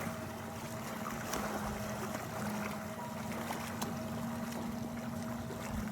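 Sea water ambience: a steady rush of moving water, with a steady low hum running under it.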